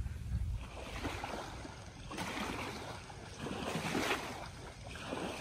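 Wind blowing over the microphone outdoors: a steady rushing hiss with a low rumble, swelling slightly a couple of times.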